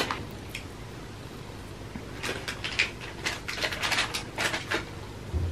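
A string of soft, sharp clicks and crackles over quiet room tone, starting about two seconds in, from handling and eating a gummy jelly sweet from its plastic packet. A short low thump comes near the end.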